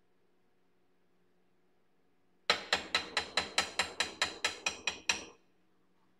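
Metal dipping fork tapped quickly against the rim of the chocolate pot, about a dozen sharp ringing taps at roughly five a second, shaking excess melted chocolate off a dipped peppermint patty.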